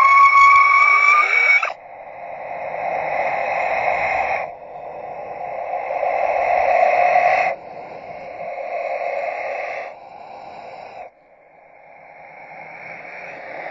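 A run of separate horror sound effects, each cut off abruptly. The first is a held, slightly rising eerie tone. It is followed by about five hissing, swelling sounds, each two to three seconds long.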